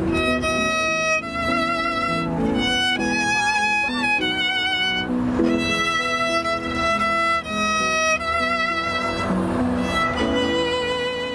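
Violin playing a melody of held notes with vibrato.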